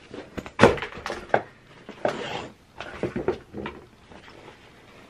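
A baby nest's storage case being handled and opened: a sharp knock just over half a second in, then a series of short rustles and clicks.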